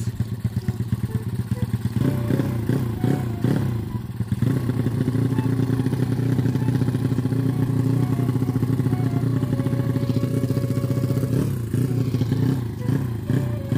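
Small racing motorcycle engine running with the rider sitting on it: a run of quick throttle blips about two seconds in, steady running through the middle, then more quick blips near the end.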